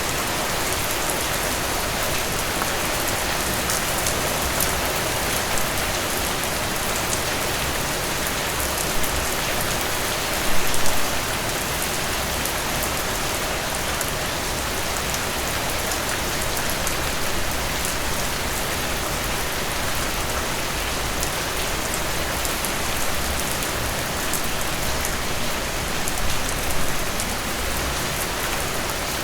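Steady rain falling, an even hiss dotted with the ticks of individual drops, with a couple of brief louder swells, one about a third of the way in and one near the end.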